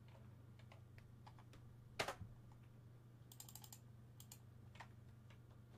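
Faint computer keyboard keystrokes over a steady low hum: a single click about two seconds in, a quick run of keystrokes a little past the middle, and a couple more single clicks after it.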